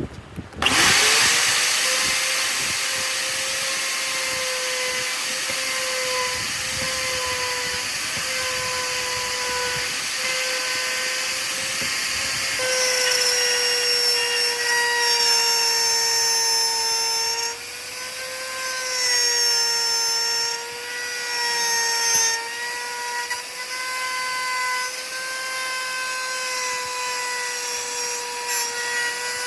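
Electric power tool motor switched on about half a second in, spinning up to a steady whine and running on, its pitch dipping briefly a few times as if loaded by the work.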